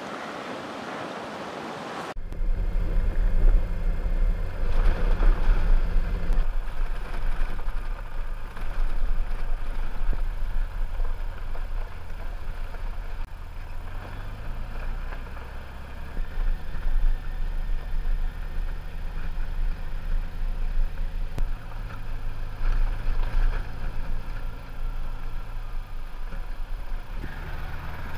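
Touring motorcycle engine running as the bike rides along a gravel road, heard from on board, its low hum stepping up and down in pitch several times with changes of speed and gear. Wind and road noise underneath; the first two seconds before the engine comes in are only a steady hiss.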